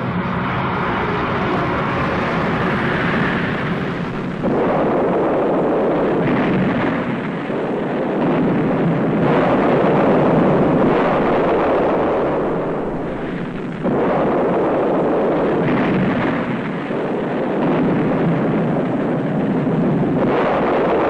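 Rocket engine roaring at liftoff, then about four seconds in a sudden explosion whose rumbling blast rolls on. Fresh blasts break in, one of them sudden near fourteen seconds, as the fireball burns.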